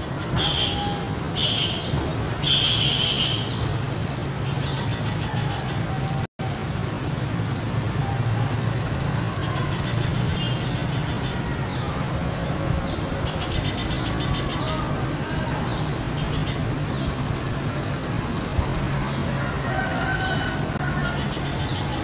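A male spiderhunter (pijantung) calling: short, high notes given in quick, closely spaced runs, calling to a female. A steady low hum runs underneath, and the sound drops out for an instant about six seconds in.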